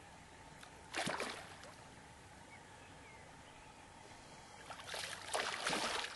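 A large fish swirling and splashing at the surface of a pond: one short splash about a second in, then a longer run of splashing near the end.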